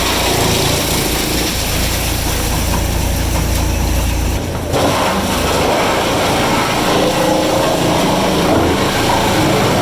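Heavy engine-driven machinery running steadily with a deep hum, which changes abruptly about halfway through to a different, busier machine noise.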